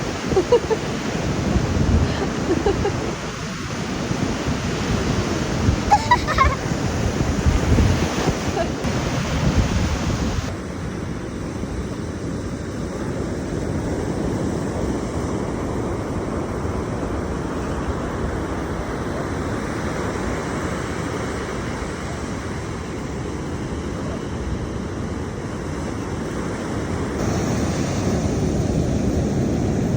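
Ocean surf breaking on the shore with a steady wash, mixed with wind on the microphone.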